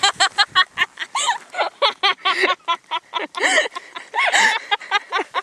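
A girl laughing hard in quick, repeated bursts of giggling, with brief gaps between runs.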